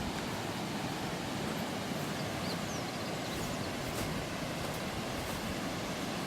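Steady, even rushing noise of the open air, with a few faint short clicks scattered through it.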